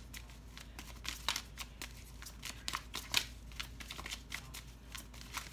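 Tarot cards being shuffled by hand: a quick, irregular run of soft card flicks and snaps, one sharper snap about three seconds in.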